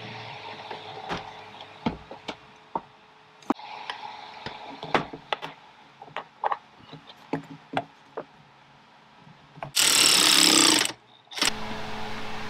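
Scattered clicks and knocks of plastic air-intake parts and hoses being handled and fitted in a car's engine bay. About ten seconds in, a cordless electric ratchet runs for about a second, the loudest sound here.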